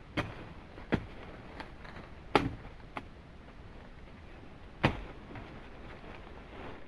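Five sharp knocks at irregular intervals, the loudest about two and a half seconds in and again near five seconds, over a steady faint hiss.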